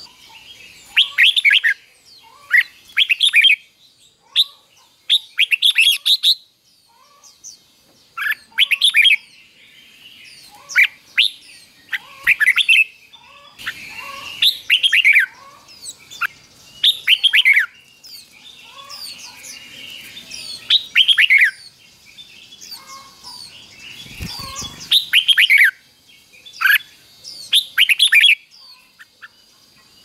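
Red-whiskered bulbul singing: short phrases of quick falling notes, repeated every second or two, with one dull low thump about four-fifths of the way through.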